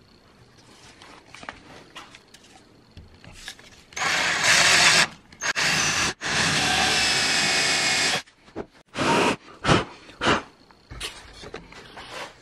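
Electric drill boring oversized holes into a wooden skeg. It starts about four seconds in and runs in three stretches of a second or two each, then in several short bursts near the end.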